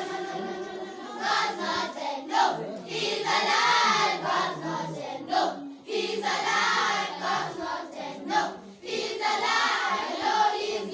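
A group of schoolchildren singing together in chorus, in phrases a few seconds long with short breaks between them.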